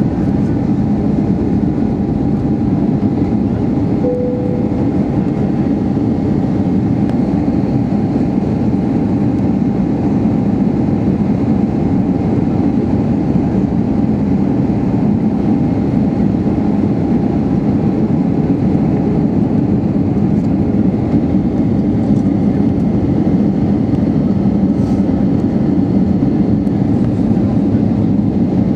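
Steady roar of engine and airflow in the cabin of an Airbus A320-232, whose IAE V2500 turbofans run at reduced power on the descent for landing. A faint steady whine sits above the roar, and a brief tone sounds about four seconds in.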